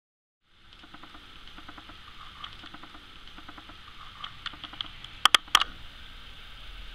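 Light, irregular clicking and rustling of polystyrene packing peanuts and bubble wrap being handled in a cardboard box, over a steady hiss. Two sharp clicks come close together a little after five seconds in.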